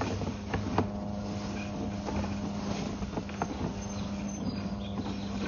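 Steady low mechanical drone with scattered sharp clicks and knocks while a sewer inspection camera is pushed along the pipe on its push cable.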